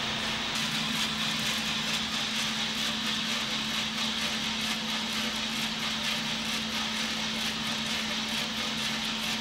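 Giesen drum coffee roaster running: a steady hum and whir of the machine, with pale, early-stage beans tumbling in the rotating drum.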